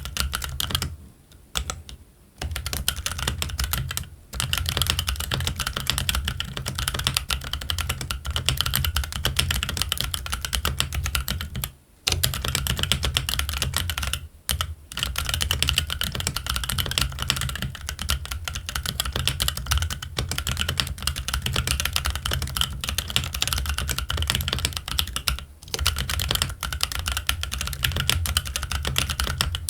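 Fast continuous typing on a Keychron Q1 mechanical keyboard with Gazzew Boba U4T silent tactile switches and ABS Cherry-profile keycaps: dense muted clacks with a low thock. There are a few brief pauses, near the start and about twelve, fourteen and twenty-five seconds in.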